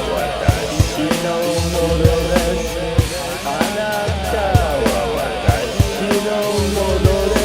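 Rock band music with a drum kit keeping a steady beat, about two hits a second, over bass and pitched lines that bend up and down.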